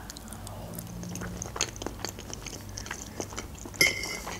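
Close-miked chewing of a mouthful of raw salmon: soft, wet mouth clicks and smacks. Near the end comes one short, louder ringing clink as a metal fork goes into a bowl.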